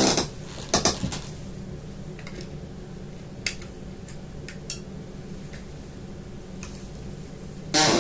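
Clicks and knocks of a small plastic portable radio being handled as its battery pack is taken out and refitted. The louder clicks come at the start, about a second in and near the end, with a few lighter ticks between, over a steady low hum.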